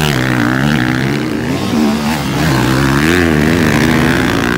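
Motocross dirt bike engines revving, their pitch rising and falling again and again as the riders work the throttle.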